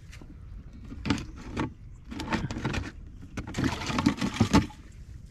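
A plastic bucket with a snap-on lid being handled, with rattling and knocking in several short bursts and a longer, louder run about three and a half seconds in.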